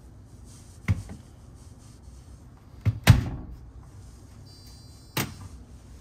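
Front-loading washing machine door being swung shut and latched: three sharp knocks and clacks, the loudest a double clack about three seconds in.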